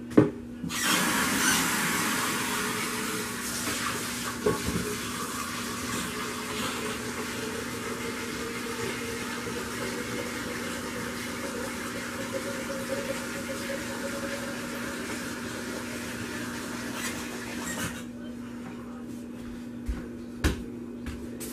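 Tap water running into a sink while a container is rinsed out, starting just under a second in and shutting off a few seconds before the end. A faint steady hum runs beneath, and a couple of knocks follow the water.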